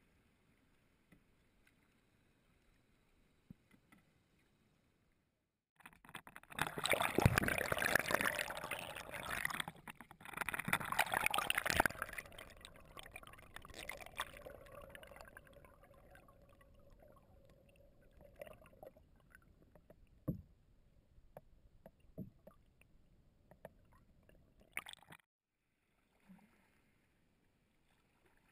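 Close-up noise right against a canoe-mounted GoPro's housing: a sudden loud rush with knocks that starts about six seconds in, then eases into a lower wash with scattered knocks, and cuts off abruptly near the end.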